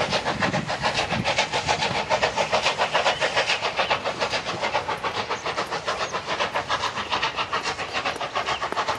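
Steam locomotive working hard at speed: a rapid, even run of exhaust beats with steam hiss.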